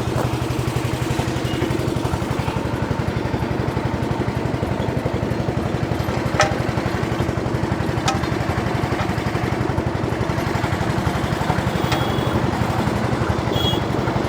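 Small generator engine running steadily at an even speed, with a fast, even pulsing hum. Two faint clicks come through about six and eight seconds in.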